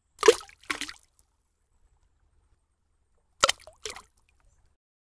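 Two cartoon liquid splash sound effects about three seconds apart, each a quick double splash: an egg dropping into a bucket of paint, then the paint-coloured egg coming out of it.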